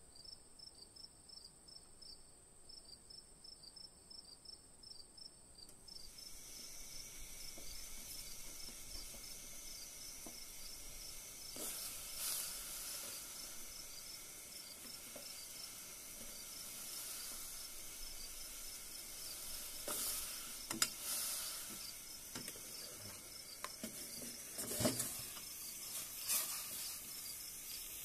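Water heating in a stainless-steel soup pot, hissing quietly as small bubbles form, under a fast, even chirping. A few short knocks and splashes come as ingredients are dropped in and stirred, the loudest about 25 seconds in.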